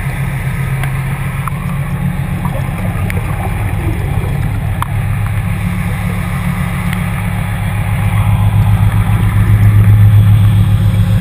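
Low, steady mechanical hum heard underwater beside a ship's hull, growing louder over the last few seconds, with a few faint clicks.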